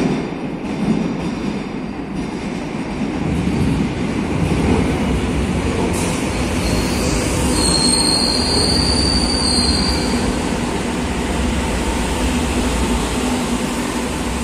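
Madrid Metro series 2000A train arriving along the platform from the tunnel, its rumble growing louder over the first few seconds. About halfway through, a high squeal from the wheels and brakes rises above the rumble for a few seconds as the train slows.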